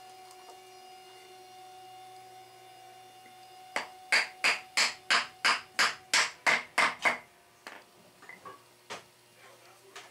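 About a dozen quick, sharp wooden taps, three or four a second, as a wooden stick is knocked against the rim of a metal spoked traction-engine wheel, starting a little before halfway through. A few faint knocks follow as the wheel and wood are shifted.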